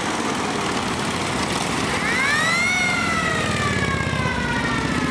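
Police car siren giving one long wail about two seconds in, rising quickly and then falling slowly, over the steady running of vehicle engines.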